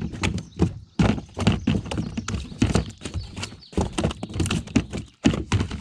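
Largemouth bass flopping in the bottom of a boat: rapid, irregular thumps and slaps as its body and tail beat against the boat floor, several a second with brief pauses.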